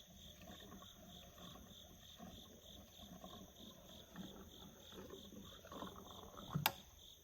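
Crickets chirping steadily, about three chirps a second, with faint handling knocks and a single sharp click near the end.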